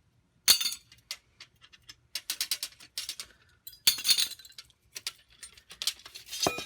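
Steel parts clinking and clanking as C-clamps and flat iron bars are taken off a freshly bent sheet-metal patch piece: a sharp clank about half a second in, a run of rattling clinks around two to three seconds, and another loud clank near four seconds.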